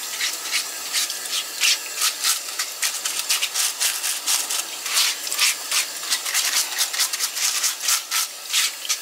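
A blade scraping along a red sea bream fillet in quick repeated strokes, about three or four dry, rasping scrapes a second.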